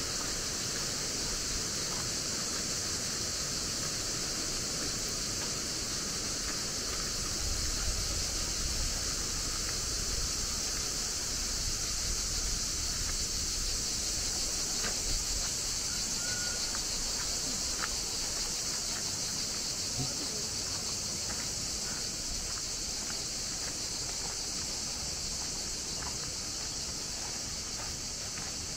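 Steady, unbroken high buzzing of cicadas, with a low rushing sound underneath that swells for a few seconds early on.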